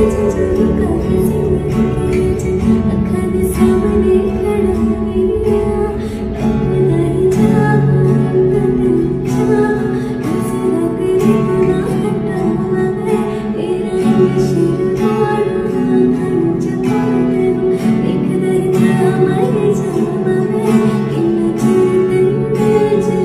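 Ringtone music led by a plucked string instrument, playing continuously.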